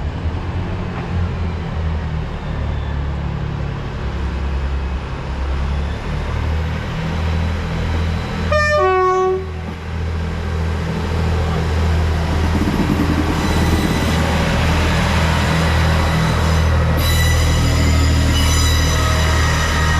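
Passing LNER Class 801 Azuma train running along the line with a steady low rumble. A short horn blast with a stepping pitch sounds about eight and a half seconds in. From about thirteen seconds on there is a high-pitched wheel squeal.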